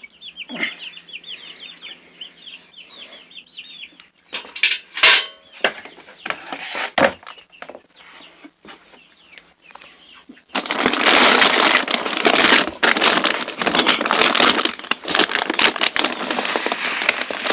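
Young chickens peeping for the first few seconds, with a few knocks. About ten seconds in, a loud rattling rush of dry chicken feed being scooped and poured begins, full of small clicking grains, and keeps going.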